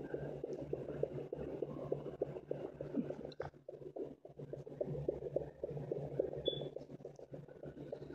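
Fetal Doppler probe pressed on a pregnant German Shepherd's belly, putting out the rapid whooshing pulses of the puppies' heartbeats, several a second, over a steady electronic hum.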